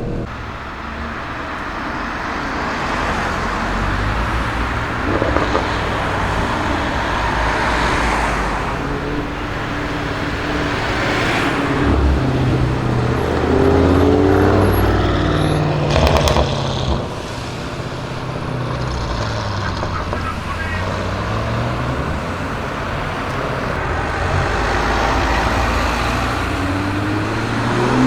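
Car engines and road noise in street traffic: a low engine note rising and falling at low speed over a steady wash of traffic noise, with an engine note climbing near the end.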